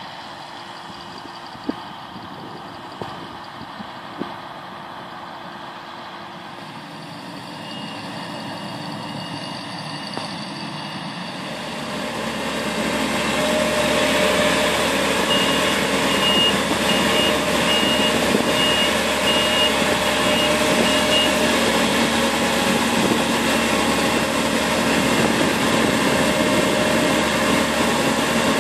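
CLAAS combine harvester running through maize, first at a distance, then close by and much louder with its unloading auger running. In the middle a short electronic beep repeats about eight times, a little more than once a second.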